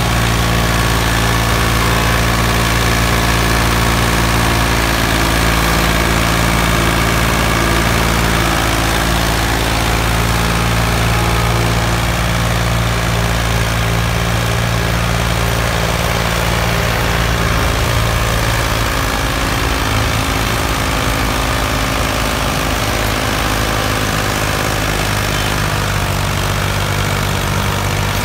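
Ford 4600's three-cylinder diesel engine running at a steady speed under heavy load, pulling a fully loaded sugarcane trolley; its pitch shifts a little about two-thirds of the way through.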